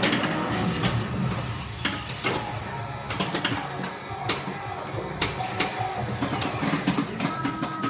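Stern Mustang Pro pinball machine in play: its game music and sound effects, with frequent sharp mechanical clicks and knocks from the playfield.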